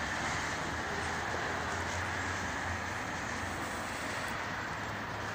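Steady distant city traffic noise: a low hum under an even hiss, without any single distinct event.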